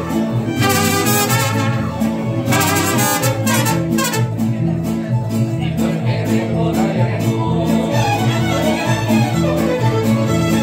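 Live mariachi band playing: violins carry the melody over trumpets and rhythmically strummed guitars with a steady bass pattern.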